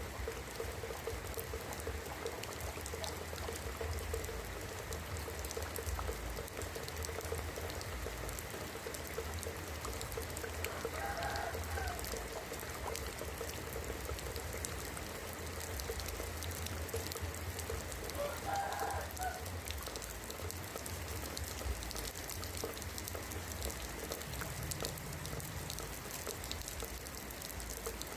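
Rain falling on roof tiles: a steady patter made up of many small ticks of individual drops. Twice, a little under halfway and again about two-thirds in, a brief call sounds through the rain.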